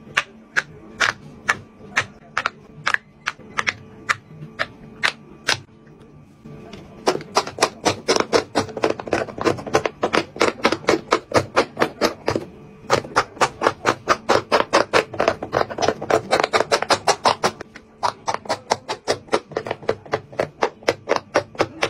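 Bubbles of a silicone pop-it fidget toy being pressed one after another, each giving a sharp pop. The pops come about two a second at first, then faster, about four or five a second, in runs with short pauses.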